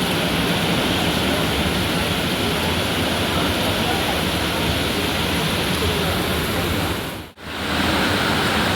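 Mumbai local train running in heavy rain: a steady rushing noise with a low rumble underneath. It cuts out abruptly for a moment about seven seconds in, then comes back unchanged.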